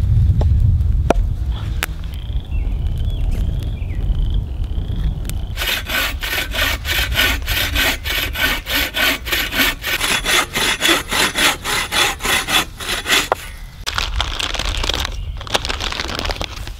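Hand saw cutting through a dead log with quick, even push-pull strokes, about three a second, starting about five seconds in and stopping near thirteen seconds. Before it there is a low steady rumble, and near the end a short stretch of rougher noise.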